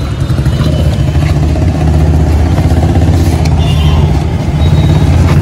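Truck engine idling steadily with a low, fast, even pulse, growing a little louder about two seconds in and again near the end.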